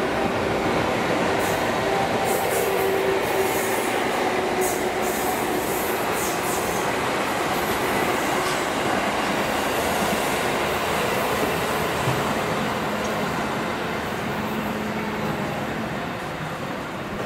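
An EF81 electric locomotive hauls an E257-series train set past: a steady rumble of wheels on rails with a faint hum in the first half. Brief high wheel squeals come during the first several seconds.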